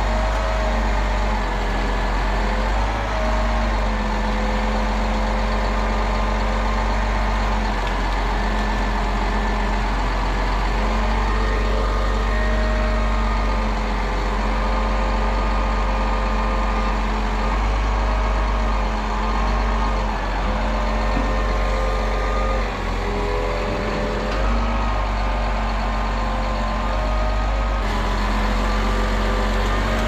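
Grapple truck's diesel engine running steadily while its knuckle-boom loader works, the pitch dipping slightly a few times.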